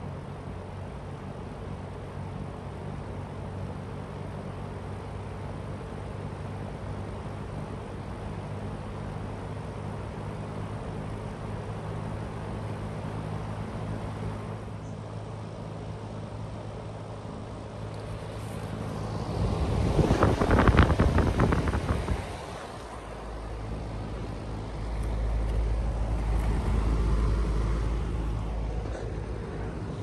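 A Fujitsu Halcyon mini-split heat pump's outdoor unit running in heat mode: a steady hum with several low tones from the inverter compressor and fan. About twenty seconds in, a loud rushing noise covers it for a couple of seconds, and then a deeper, louder hum carries on.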